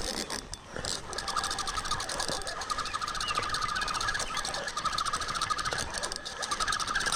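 Fishing reel being cranked to bring in a hooked bowfin, a fast, even whirring click that starts about a second in.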